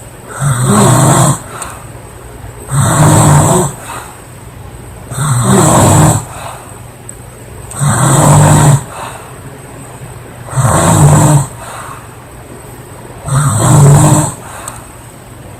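A girl snoring loudly: six snores, each about a second long, coming evenly about every two and a half seconds.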